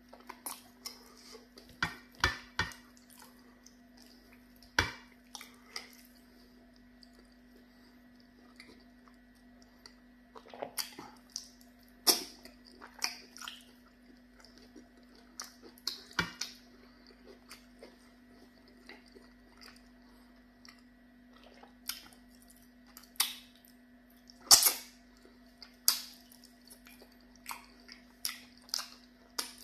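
Close-up mouth sounds of a person eating pounded yam fufu and vegetable soup with fish by hand: irregular wet smacks, clicks and chewing, in clusters with quieter pauses, over a faint steady hum.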